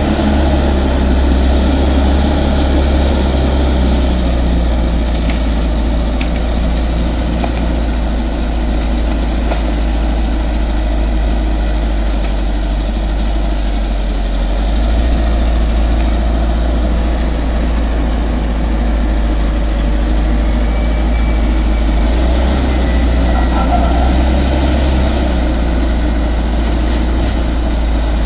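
Crawler bulldozer's diesel engine running steadily with a deep, continuous drone, its note shifting about halfway through.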